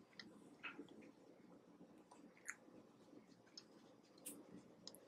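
Near silence: faint room tone with a few scattered small clicks.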